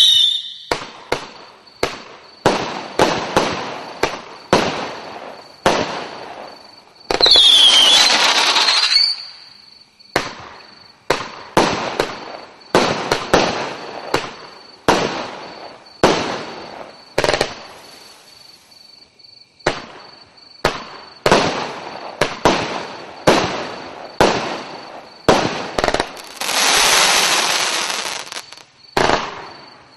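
Yelling Storm fireworks cake firing a long series of single shots, about one a second, each a sharp bang. About eight seconds in, a brief sliding whistle rides over a stretch of hissing crackle, and another long hissing stretch comes near the end.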